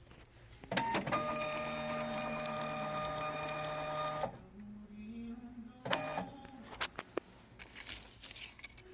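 Thermal barcode label printer running: a couple of clicks, then its motor feeds labels with a steady whine for about three seconds and stops abruptly. A shorter, lower motor hum and a few sharp clicks follow.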